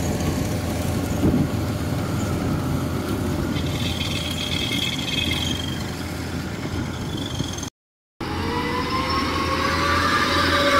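Engine of a small tracked rice-sack hauler running steadily as it crawls over soft field ground. The sound drops out for half a second about three-quarters of the way through; after that the engine note climbs slowly.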